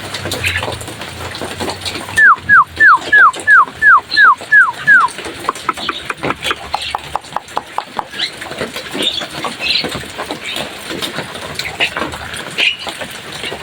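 Javan myna (jalak kebo) singing. It gives a run of about nine loud whistles, each sliding downward, then rapid clicking chatter and short squeaky notes.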